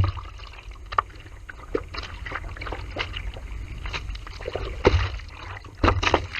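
Strong wind buffeting the microphone: a steady low rumble with scattered knocks and pops, the loudest about a second in and near the end.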